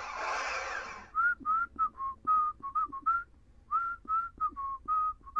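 A short hissing whoosh, then a tune whistled in short, quick notes, some sliding up in pitch: the whistled opening of a theme song.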